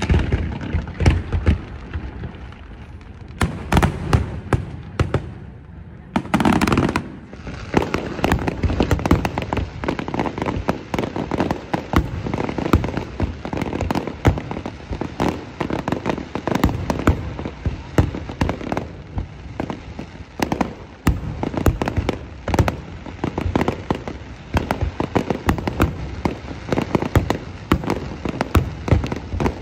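Fireworks display: a dense, continuous run of shell bursts and crackling, several bangs a second, with a short lull a couple of seconds in before the barrage picks up again.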